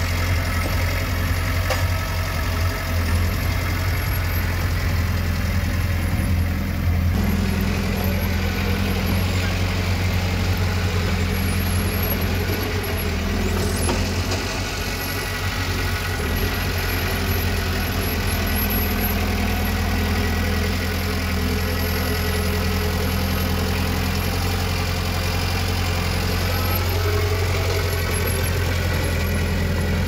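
Komatsu D20 bulldozer's diesel engine running steadily with a deep, even drone, its note shifting slightly about seven seconds in.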